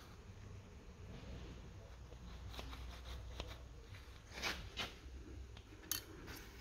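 Faint hand work on a bare engine: a few light clicks and taps of small metal parts, the sharpest near the end, over a low hum.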